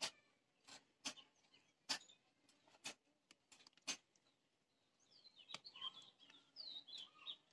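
Five faint sharp clicks about a second apart, then small birds chirping quickly and repeatedly through the last two seconds or so.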